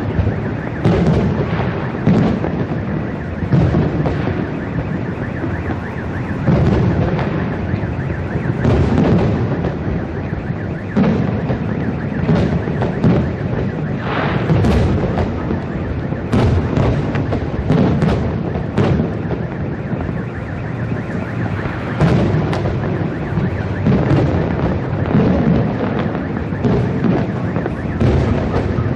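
Aerial firework shells bursting one after another, a boom every second or two, over a continuous rumble and crackle from the display.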